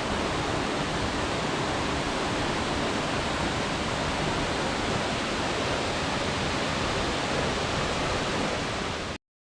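Waterfall pouring steadily, an even rush of falling water that cuts off suddenly near the end.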